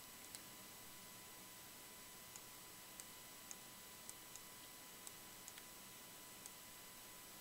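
Faint, irregular clicking of a computer mouse and keyboard, about ten small clicks spread over the stretch, over a low steady microphone hiss.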